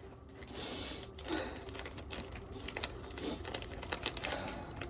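A crunchy snack and its packaging being handled and eaten: rapid, irregular crackling clicks, with a short rustle about half a second in.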